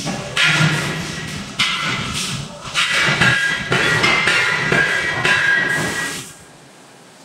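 Heavy forging machinery working a hot steel shaft: a hissing din with a steady high metallic squeal and low knocks, cutting off abruptly about six seconds in.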